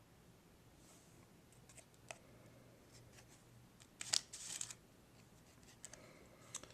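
Trading cards being handled and slid past one another: a few faint clicks and slides, with a louder, brief card rustle about four seconds in.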